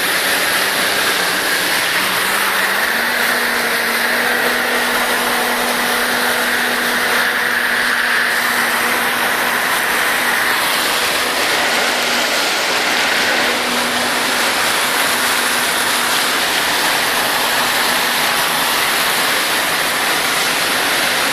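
A car driving through deep floodwater: water rushing and splashing around it steadily, over a low engine hum whose note steps up slightly about three seconds in.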